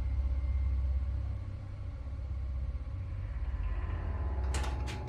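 A steady low rumble with faint steady tones above it, and two or three sharp clicks near the end.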